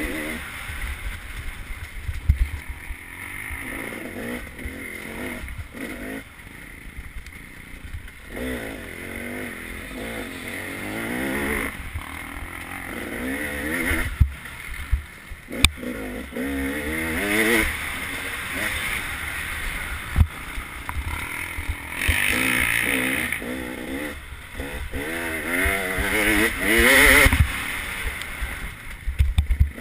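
Off-road motorcycle engine revving up and falling back over and over as the rider accelerates and shuts off between turns on a tight woods trail, with a rumble of wind and terrain and a few sharp knocks from bumps.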